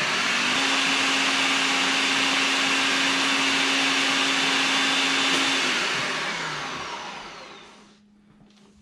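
Countertop blender motor running steadily as the whipped cream breaks into butter and buttermilk, then dying away over the last few seconds.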